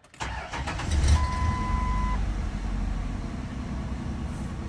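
2002 Ford Explorer Sport Trac's 4.0-litre V6 starting up, surging briefly about a second in, then settling into a steady idle with no misfire once the cylinder 4 spark plug wire is back on. A steady electronic beep sounds for about a second as the engine catches.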